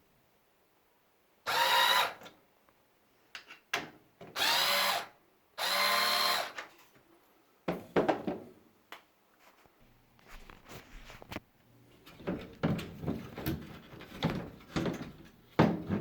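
Power drill running in three short bursts of about a second each, then a run of clicks and knocks as parts are handled.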